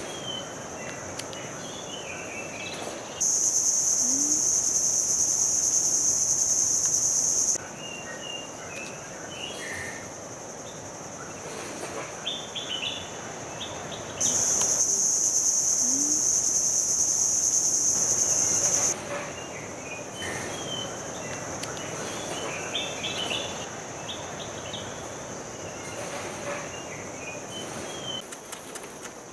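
Loud, high-pitched insect buzz that comes twice, each time for about four and a half seconds, and starts and stops abruptly. Between the bursts, birds chirp over a steady outdoor background.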